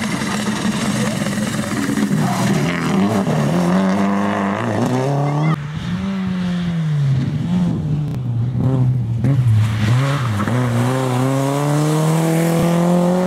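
Rally car engines at full throttle. A Subaru Impreza rally car revs hard through a bend with rising revs and gear changes. After a sudden cut, a Peugeot 106 rally car's engine dips and then climbs steadily in pitch as it accelerates.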